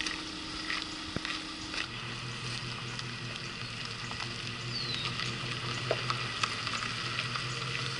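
Gravel crackling and popping under slowly rolling tyres as a disabled rally car is pulled along on a tow strap. A steady low engine hum sets in about two seconds in.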